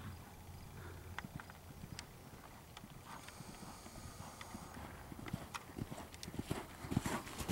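A horse cantering on arena sand: hoofbeats in the canter's rhythm, growing louder near the end as it comes close.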